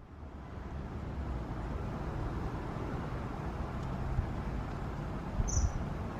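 Steady outdoor background rumble and hiss, like distant traffic, with one short, high-pitched bird call about five and a half seconds in.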